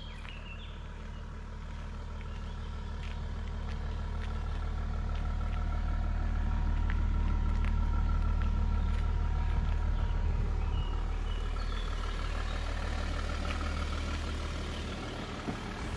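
Audi A4 B7 3.0 TDI V6 diesel with stock exhaust idling: a steady low note that grows louder toward the middle and eases off again.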